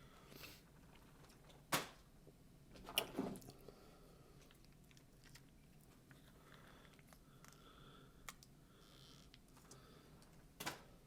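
Close-miked chewing and biting, mostly soft and wet, broken by a few sharp crunches. A single crunch comes just under two seconds in, a louder cluster about three seconds in, and another near the end. It is someone eating a Taco Bell Mexican pizza with crisp fried tortillas.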